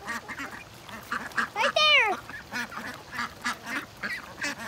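A flock of domestic Ancona and call ducks quacking in quick, short, overlapping calls. About two seconds in, a goose gives one loud honk that rises and then falls.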